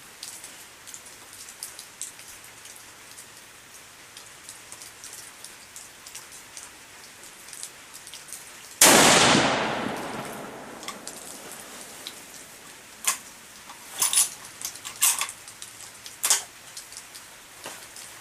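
A single shot from a Stevens bolt-action rifle in .243, sudden and loud about nine seconds in, its report dying away over about a second and a half. A few short sharp clicks follow some seconds later.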